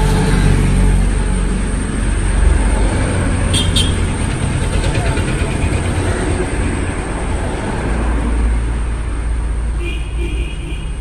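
A steady low rumble of outdoor background noise, like road traffic, with a few faint high clicks about a third of the way in.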